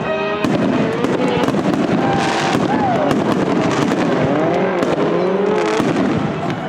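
Aerial fireworks going off in quick succession, with many sharp cracks and crackles, over a crowd's raised voices.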